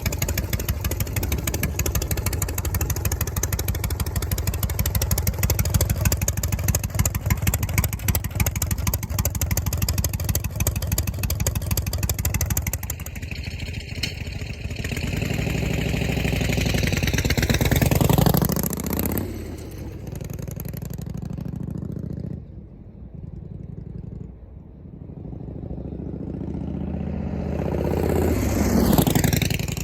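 Harley-Davidson Shovelhead V-twin running through a muffler fitted with a new inner silencer, giving a deep, pulsing exhaust beat. Then it rides past twice, halfway through and again near the end, each time swelling up and falling away in pitch as it goes by.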